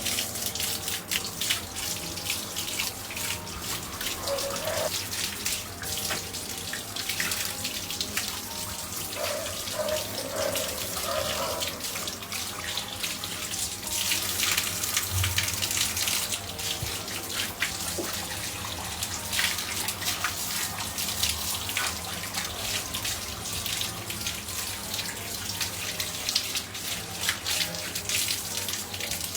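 Water running and splashing steadily while a dog is given a bath.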